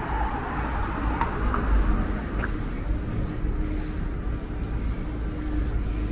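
Street traffic ambience: a car drives past on the road in the first two seconds, over a steady low rumble of city traffic.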